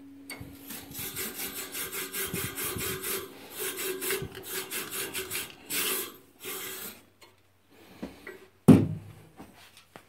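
Tube brush scraping up and down inside the fire tubes of a NIBE Biawar Pellux 200 pellet boiler in quick repeated strokes, stopping about seven seconds in. A single sharp knock follows near the end.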